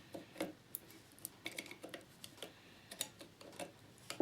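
Faint, irregular light clicks and small knocks, a dozen or so scattered through, from handling the battery pack and small tools on a workbench.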